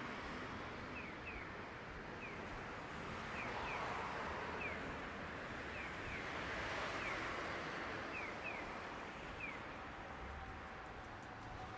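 A bird calling repeatedly: short falling chirps, often in quick pairs, about once a second, over a steady background rush.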